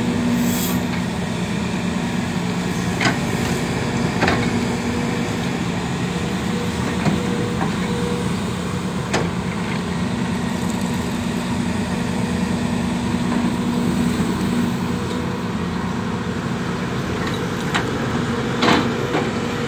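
Diesel engine of a Hidromek wheeled excavator running steadily as it digs, a constant low hum. About half a dozen sharp knocks break through it.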